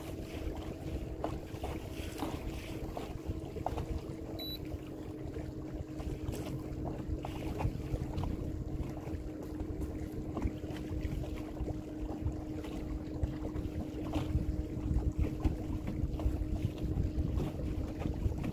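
Wind noise on the microphone in a small fishing boat on the water, with a steady low hum and scattered small knocks and taps.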